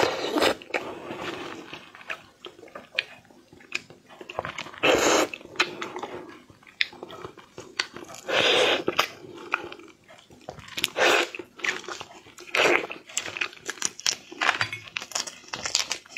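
Slurping and sucking on raw shrimp, about five loud slurps of half a second to a second each, between wet mouth clicks and the small cracks of shell being peeled apart with gloved hands.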